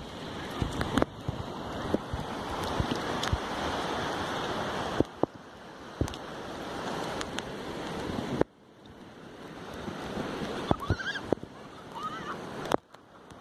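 Surf washing onto the beach, a steady hiss that swells and then stops suddenly a few times, with wind on the microphone and scattered light clicks.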